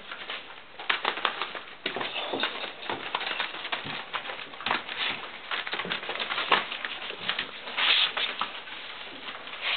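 Puppies scrabbling about on newspaper bedding close up: a steady run of irregular scratches, clicks and paper rustles, with a louder rustling burst near the end.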